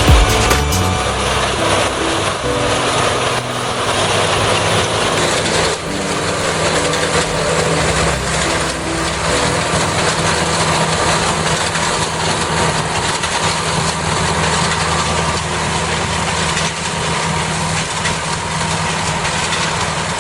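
Head-feeding rice combine harvester with binder running steadily, its engine holding an even pitch under a dense mechanical noise.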